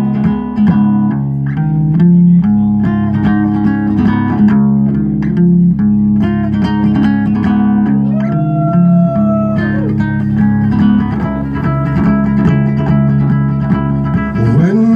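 Solo ukulele playing an instrumental passage of plucked chords live through a PA, with no singing.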